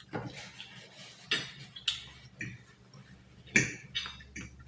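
Eating utensils clicking and scraping against a plate in a few short, irregular knocks, the loudest about three and a half seconds in.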